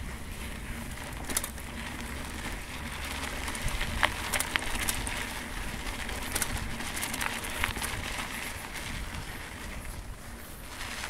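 Crunching and scattered sharp clicks and rattles of travel over a rough sand-and-gravel dirt track, with a low wind rumble on the microphone.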